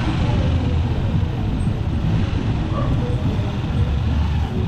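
Tricycle's motorcycle engine running steadily while riding, a low rumble with road noise.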